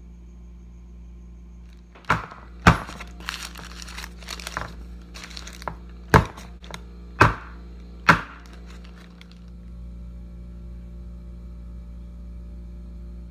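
Parchment-lined metal cake pan full of batter knocked down on a wooden table five times, tapped to burst air bubbles in the batter, with the parchment paper crinkling between the knocks.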